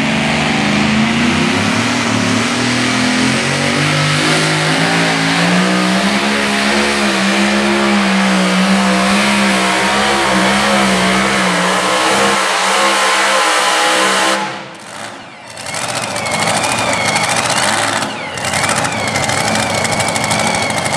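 Two-wheel-drive pulling truck's engine running hard under full throttle while it drags a weight-transfer sled, its pitch wavering up and down. About 14 seconds in the sound drops away sharply, and the engine then runs on with a high, wavering whine.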